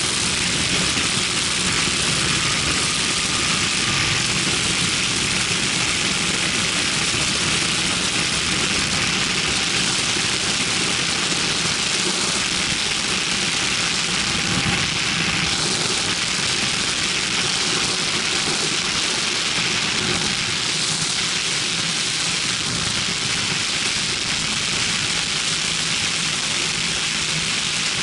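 Ultralight aircraft's engine and propeller running steadily in flight, heard from the open cockpit under a heavy rush of wind on the microphone.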